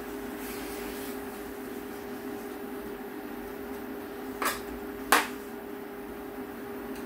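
Kimchi frying in a pot on a tabletop cooker, under a steady low hum, with a metal spoon clinking against the pot twice about four and a half and five seconds in as it is stirred.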